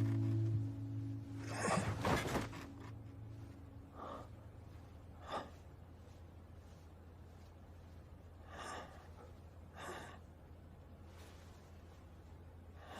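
Soft background music fades out. Then come a string of breathy gasps and sighs from a voice actor, the loudest about two seconds in and the rest spaced out over the following seconds, above a low steady hum.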